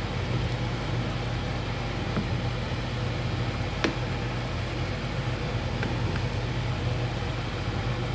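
Microwave oven running with a steady low hum, with one sharp click about four seconds in.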